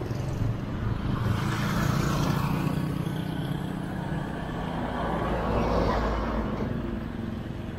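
A motor vehicle's engine running steadily, with two swells of louder road or wind noise, one a second or two in and one around six seconds in.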